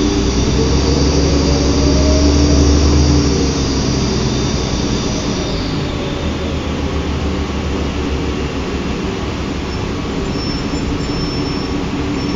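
2005 New Flyer D40LF transit bus's Cummins ISL diesel engine pulling hard, its pitch rising over the first couple of seconds, then easing off about three seconds in and running on more quietly. A faint high whine fades out around halfway, and two short high tones sound near the end.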